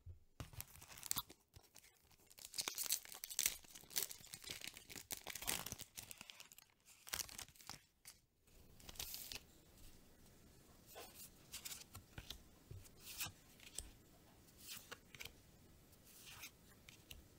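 Foil wrapper of a Magic: The Gathering draft booster pack being torn open and crinkled, in dense crackly bursts for about the first eight seconds. After that come quieter, scattered rustles and clicks as the cards are slid and handled one by one.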